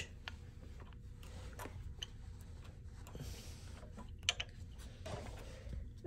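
Faint ticks and clicks of a small screwdriver loosening the front cover screw of a Schneider pressure switch, with one sharper click about four seconds in.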